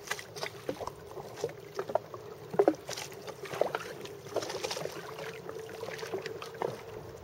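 Small waves slapping and lapping irregularly against a boat hull, over a steady low engine hum.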